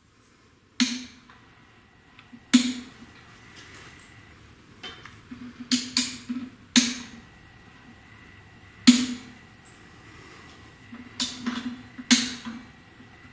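Sharp metallic knocks and clunks at irregular intervals, some in quick clusters, each ringing briefly, from working on the engine and bellhousing while a dial indicator is turned around the bellhousing bore for a runout check.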